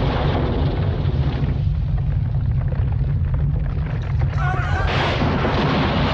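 Film earthquake sound effect: a continuous deep rumble with crashing, clattering debris over it. From about five seconds in, people's screams rise above it.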